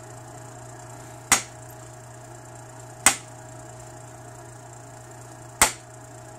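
Antler billet striking the edge of an obsidian preform three times, sharp clicks about two seconds apart, knocking short flakes off the edge.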